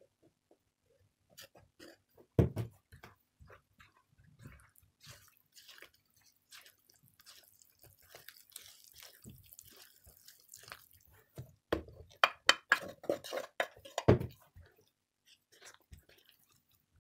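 Silicone spatula stirring flour into a wet, sticky dough in a bowl: irregular soft squelching and scraping, with knocks against the bowl, one loud one about two seconds in and a quick cluster near the end.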